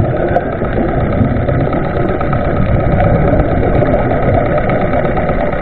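Steady, muffled underwater noise picked up by a camera below the surface, a dense rumble with a faint steady hum running through it.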